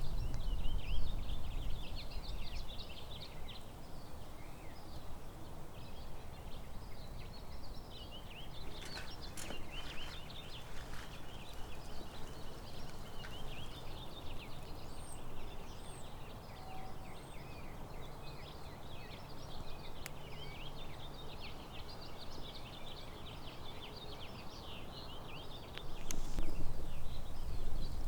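Many small birds chirping in a busy, continuous chorus, over a low rumble of wind on the microphone. The rumble is stronger at the start and again near the end.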